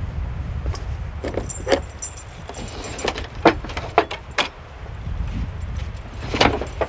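Small metal objects clinking and jingling with a high ringing, followed by several separate sharp knocks, over a steady low rumble.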